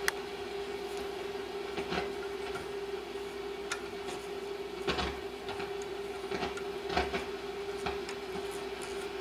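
Steady mid-pitched test tone from the restored 1936 Philco 116x radio's speaker, the signal generator's tone coming through the set during shortwave alignment as the RF trimmer is turned to peak the output. A few short clicks and crackles are scattered through it, the loudest near two, five and seven seconds in.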